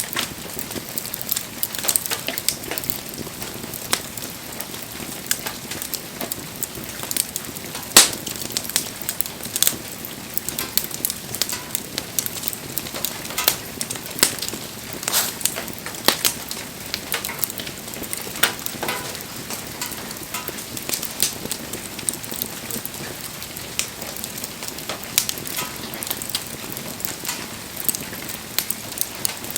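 Wood bonfire crackling: irregular sharp snaps and pops over a steady hiss, with one loud pop about eight seconds in.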